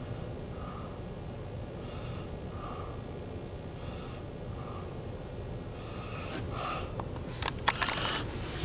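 A person breathing close to the microphone in a slow, steady rhythm, about one breath every two seconds, over a low steady rumble. In the last two seconds, clicks and rustling from the hand-held camera being moved.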